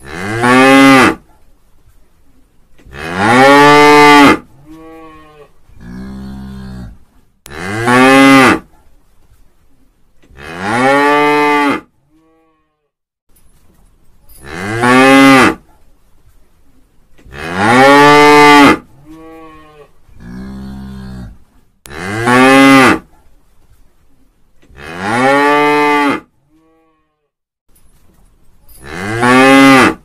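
A cow mooing over and over: about nine loud moos, roughly one every three to four seconds, each rising in pitch as it starts, with a few quieter moos in between.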